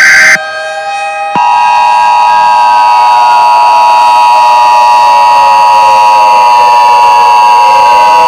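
Emergency Alert System tones. The last SAME data header burst ends just after the start. About a second later the loud, steady two-tone EAS attention signal starts and holds, with a faint, slowly gliding tone running underneath.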